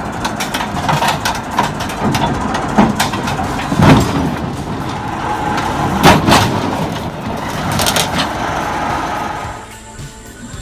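Heavy vehicle running, with a steady rattle and clatter. Two loud bangs come about four and six seconds in, and the sound drops away shortly before the end.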